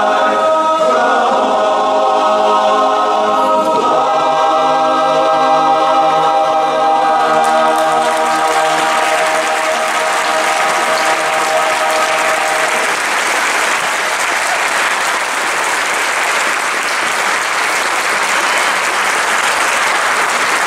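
Men's a cappella chorus holding the final chord of a song, with audience applause breaking in while the chord still sounds and carrying on after it dies away.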